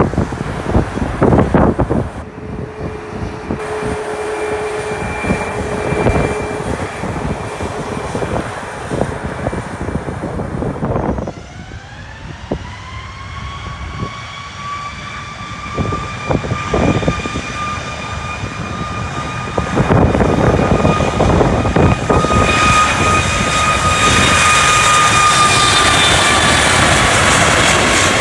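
Jet airliner on approach to land: its engine whine starts rising in pitch about a third of the way in, then holds steady and grows louder toward the end, over a low rumble.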